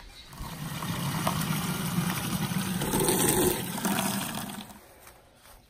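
Water pouring into a plastic watering can, filling it. The sound starts just after the beginning, holds steady and fairly loud, then dies away about five seconds in.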